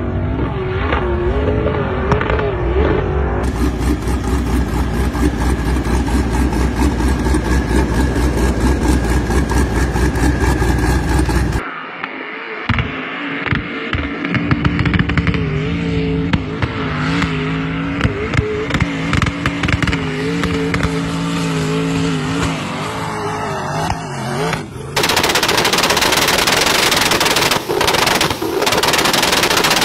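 Modified pickup trucks' engines at full throttle climbing a sand dune. The exhaust gives a rapid, harsh rattle, and the engine note rises and falls as the throttle is worked. Near the end an abrupt cut brings a louder, harsher engine sound.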